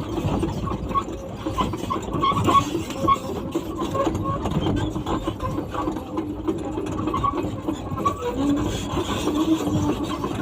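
Excavator-mounted hydraulic hammer breaker hammering repeatedly, with the excavator's engine running.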